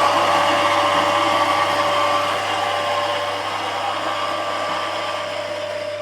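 Mazzer ZM electric coffee grinder running, its motor and burrs grinding espresso beans with a steady hum.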